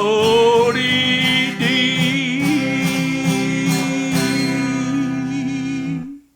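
A man sings the last yodelled note of a country cowboy song. His voice glides up, then holds one long note with vibrato over a strummed guitar, and both stop together about six seconds in.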